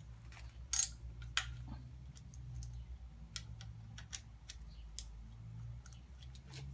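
Light, irregular clicks and taps of hand tools and metal parts being handled during work on the timing belt and tensioner, over a steady low hum.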